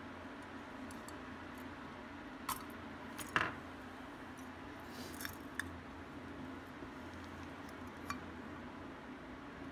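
A few small, sharp metal clicks and clinks from handling the metal case of a vintage Maico pocket voltmeter and prying at it with a small metal pick, the loudest about three and a half seconds in.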